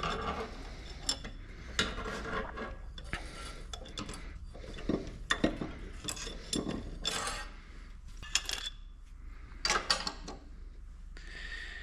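Irregular metallic clinks, clicks and scrapes as clamps are slowly backed off a 4L80E overrun clutch drum's compressed spring cage, metal parts knocking and rubbing on the bench.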